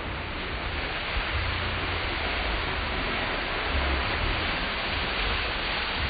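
Steady, even hiss with a faint low rumble: road noise inside a moving car on a slushy street.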